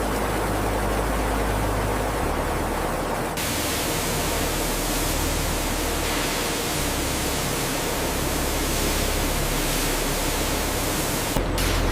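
A steady rushing noise with no distinct events, which abruptly turns brighter and hissier about three seconds in and loses some of its hiss near the end.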